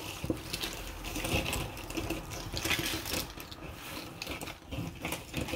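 Cardboard jigsaw puzzle pieces clicking and sliding against each other and the tabletop as hands spread and sort them: an irregular patter of many small clicks.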